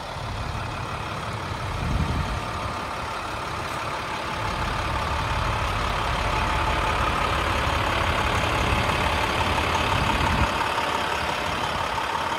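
International 4300 truck's MaxxForce diesel engine idling steadily, getting louder over the first few seconds, with a steady whine that strengthens in the second half. Two brief low rumbles break in along the way.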